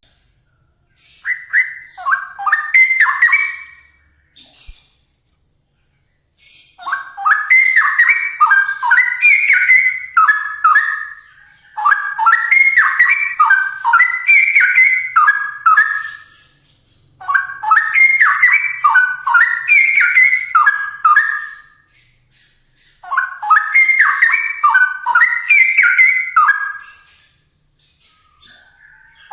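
Straw-headed bulbul (cucak rowo) singing loudly. It gives five phrases of quick, gliding notes, each lasting a few seconds, with short pauses between them.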